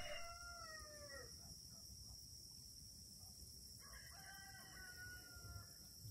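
A rooster crowing twice, faint and far off: each crow a drawn-out call that drops in pitch at its end, the second about four seconds in. A steady high insect trill runs underneath.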